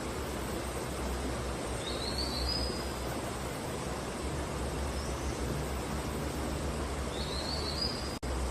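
A bird giving a short rising call twice, about two seconds in and near the end, with a fainter call between, over a steady hiss-like outdoor ambience with a low hum; the sound drops out for an instant near the end.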